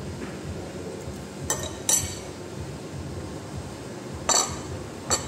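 Eating utensils clinking against a bowl during a meal: four sharp clinks spread over a few seconds, over a steady background noise.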